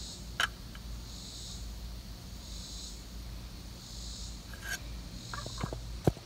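A person breathing close to a phone's microphone: a soft hiss about every second and a half, over a low steady hum, with a couple of light clicks.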